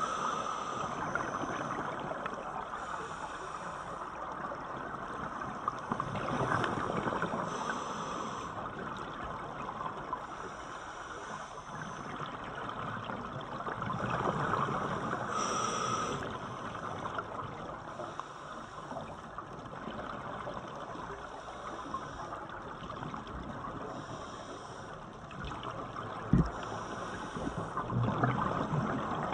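Scuba diver breathing through a regulator underwater: a short hiss with each inhale every few seconds, with a longer pause in the middle, and bubbling exhaust between breaths. A single dull thud near the end.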